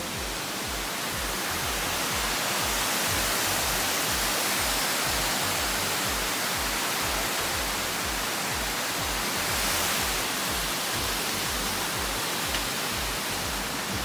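Steady rush of falling water from a waterfall, a dense even hiss with no breaks, swelling slightly in the middle.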